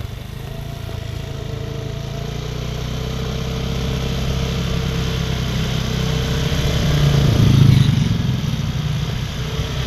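Road vehicle engine running, growing louder to a peak about three-quarters of the way through as it passes close, then easing off.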